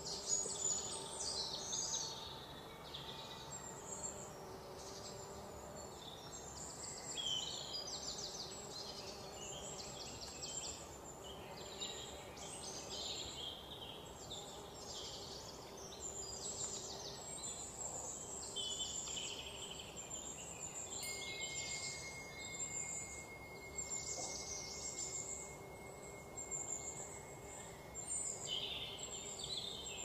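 Outdoor ambience of many small birds chirping and trilling without pause, over a faint steady hum. A thin steady high whistle joins in for several seconds about two-thirds of the way through.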